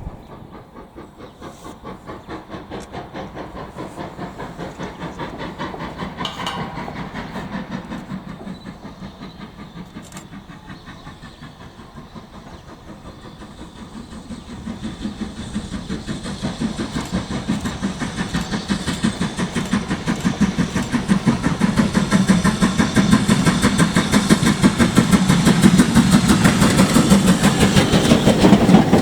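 Steam locomotive working with a fast, even run of exhaust beats and hiss, getting steadily louder through the second half.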